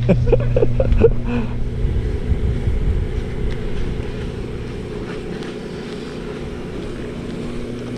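A steady low engine hum, with brief voice sounds in the first second or so.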